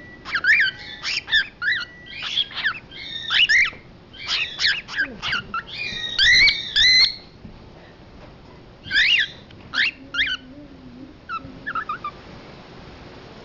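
Cockatiel calling in a rapid string of short, sharp, sweeping chirps over the first seven seconds, then a few scattered calls with gaps between them.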